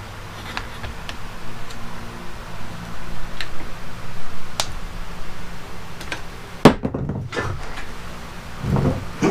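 Hand work at a bench vise: scattered clicks of a one-handed bar clamp being squeezed on a steel shaft, with a sharp metal knock about two-thirds of the way through and a dull thump near the end.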